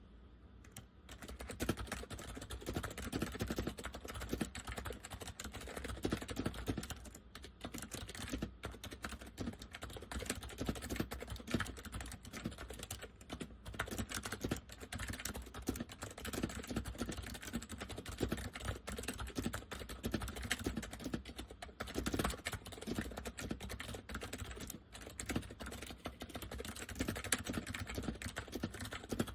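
Continuous fast typing on an Acer 6312K7 keyboard with Acer semi-mechanical switches in a KB101A-style case: dense, quick key clicks with a deep sound from the chassis, starting about a second in.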